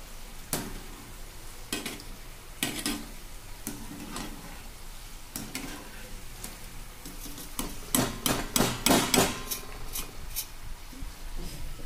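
Stainless-steel mesh strainer knocking and scraping against a kadai while scooping deep-fried battered chickpeas out of hot oil, with a quick run of sharp clinks about eight to nine seconds in. Oil sizzles underneath.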